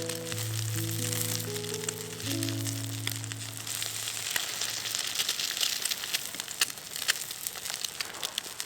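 Steak sizzling over a charcoal fire, with a steady high hiss and a dense run of small spitting crackles. Background music plays over it and stops about four seconds in.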